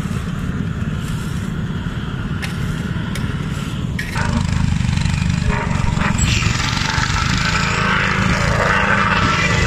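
Small petrol engine of a vibratory plate compactor running steadily. About four seconds in the sound gets louder, and from about six seconds a loud rushing, rattling noise is added on top.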